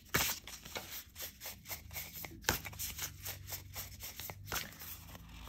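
A tarot deck of thick, stiff cards being hand-shuffled: a quick, irregular run of soft card slaps and slides, with a louder slap about two and a half seconds in, thinning out near the end.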